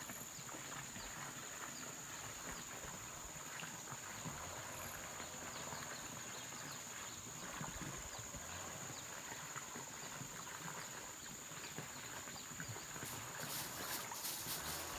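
Steady high-pitched insect drone, like crickets or cicadas, over a low hiss, with faint scattered clicks and rustles.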